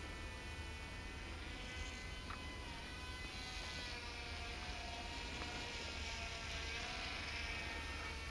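The Silverlit X-Twin Turbo-Fury's twin small electric motors and propellers buzzing as the toy RC plane flies overhead, the pitch drifting slightly up and down.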